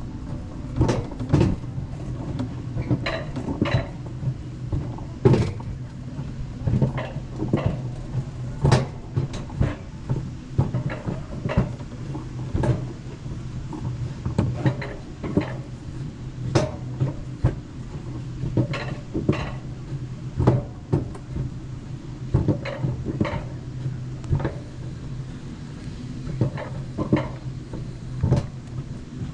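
Alpine coaster sled running on its steel track: irregular rattles and knocks over a steady low hum.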